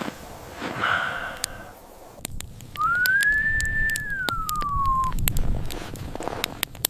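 A single long whistled note that rises, holds and then slides down, over a low rumbling noise and scattered clicks.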